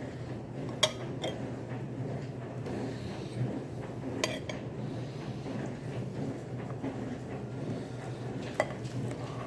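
Cutlery clinking against a plate a few separate times, over a steady low hum.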